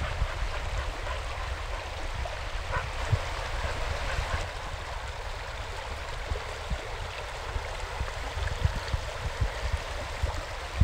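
Shallow river rushing steadily over gravel riffles, with a low rumble underneath.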